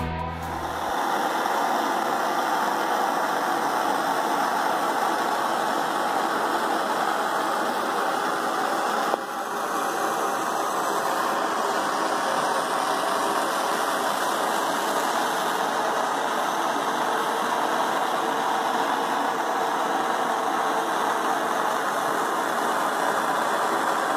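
Handheld gas torch burning with a steady hiss as its flame scorches the surface of a rough cedar fence picket.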